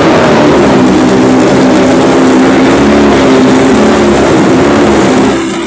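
2020 BMW S1000RR M Sport's inline-four engine running loud and steady at raised revs through an aftermarket slip-on exhaust. It drops back a little after five seconds.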